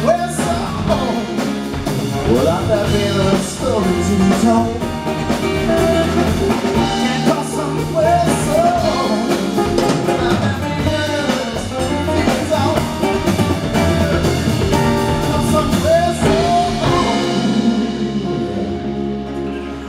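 Live acoustic band playing: two acoustic guitars, electric bass and conga drums, with a man singing. The music thins out near the end as the song winds down.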